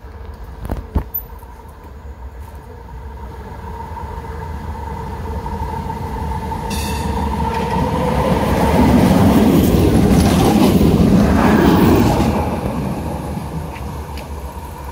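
A Croydon Tramlink tram, a Bombardier CR4000, approaching and passing close by. Its running and wheel-on-rail noise grows steadily, is loudest past the middle, then fades as it moves away.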